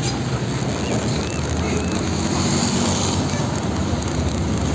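Heavy fuel tanker truck driving past close by: its diesel engine running and tyres on the road, a steady rumble.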